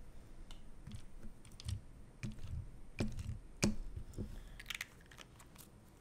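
Scattered light clicks and taps of small plastic parts being handled on a table: a lube bottle and the pieces of a Yuxin Little Magic 3x3 speed cube during reassembly, with the sharpest clicks about three and three and a half seconds in.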